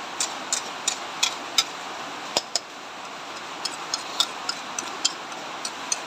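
Metal spatula clicking and scraping against a wok while stirring shredded cabbage and carrots in broth, a sharp tick roughly every third of a second at first, then in a looser run in the second half. A steady hiss lies underneath.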